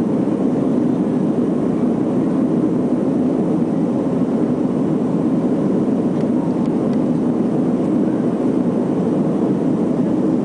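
Steady cabin noise inside a Boeing 737-300 in flight: an even rush of airflow with the low drone of its CFM56-3 turbofan engines, unchanging throughout.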